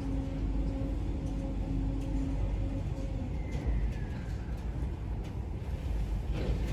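Car elevator's drive humming steadily as the platform carries the car between floors, cutting out about two and a half seconds in as the lift comes to a stop. A brief falling squeal follows, over a low rumble, heard from inside the car.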